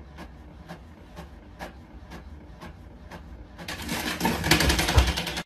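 Inkjet printer running, with a low hum and a regular tick about four times a second, then a louder, faster rattle of printing over the last couple of seconds. There is a low thump near the end.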